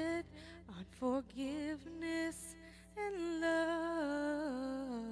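Female voices singing a slow, held melody in a worship song, the line stepping down in pitch over the last two seconds.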